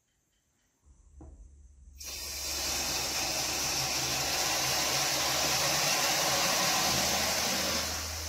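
Shower head turned on about two seconds in, water spraying in a steady hiss that eases off near the end, over a low hum.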